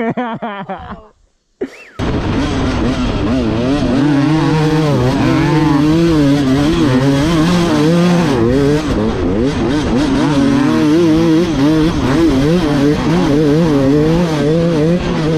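Dirt bike engine revving up and down as the bike is ridden along a sandy trail, heard from on the bike. It starts abruptly about two seconds in.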